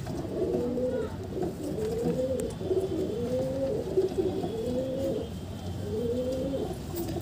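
Pigeons cooing, a continuous run of low rolling coos one after another.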